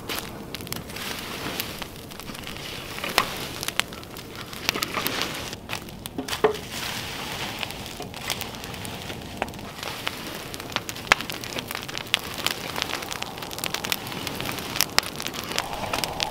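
Open wood fire crackling and popping as it chars the ends of log posts, sharp irregular snaps over a steady hiss.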